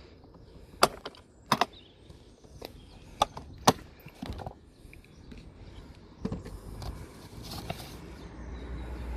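Several sharp clacks and knocks, two of them close together, followed by softer handling noises. Near the end a steady noise starts to build and grows louder.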